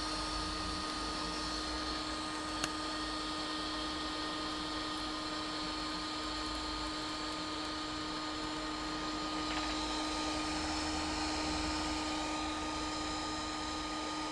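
Hot air rework station blowing steadily, a constant airy hiss with a steady hum, used to heat off a small component near the shunt resistor on the laptop motherboard. A small click about two and a half seconds in.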